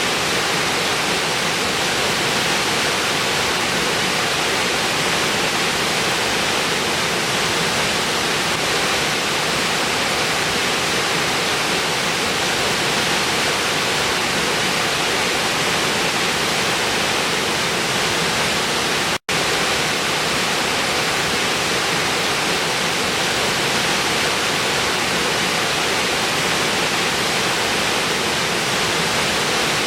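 Waterfall rushing in a steady, unbroken roar of falling water. It cuts out for a split second about two-thirds of the way through, then resumes unchanged.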